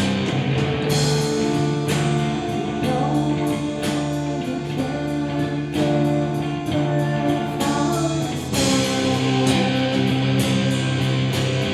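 Rock band playing a song: electric guitar over drums, with cymbal crashes about a second in and again near the end.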